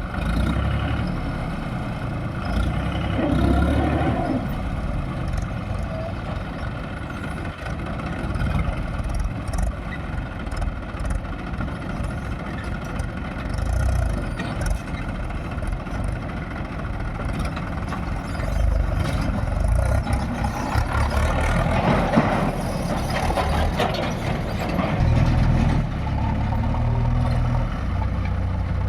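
Diesel engine of a JCB 3DX backhoe loader running under working load, its note rising and falling as the machine works, with a few louder surges.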